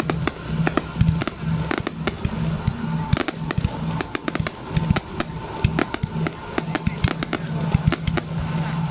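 Aerial fireworks display exploding in a dense, irregular run of sharp bangs and crackles, several a second, with music playing steadily underneath.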